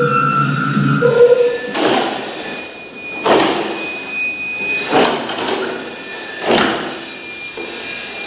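Experimental electronic noise: steady tones that stop about a second in, then four rushing bursts of noise about a second and a half apart over a thin high steady tone.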